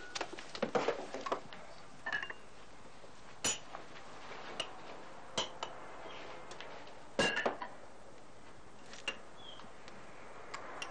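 China tableware clinking as soup is served: a tureen lid and a ladle knocking against porcelain bowls in scattered light clinks. There is a cluster of clinks in the first second and a louder one a little past seven seconds in.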